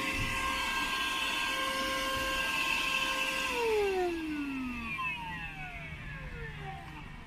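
Worx WX030 cordless handheld vacuum running with a steady motor whine. About three and a half seconds in it is switched off, and the whine falls in pitch as the motor spins down.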